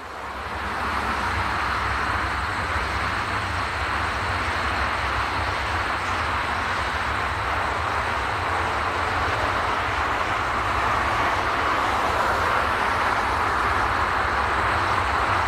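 Twin-engine widebody jet airliner's engines spooling up to takeoff power as it starts its takeoff roll: a steady jet roar that swells over about the first second and grows a little louder in the second half.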